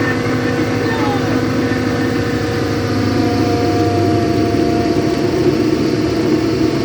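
Boat engine running steadily, its note shifting a little higher about halfway through.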